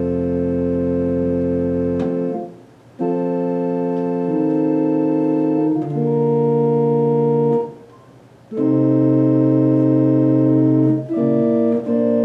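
Baldwin HT2 organ playing slow, held chords, the first with a low pedal bass note beneath, with two brief breaks between phrases and quicker chord changes near the end.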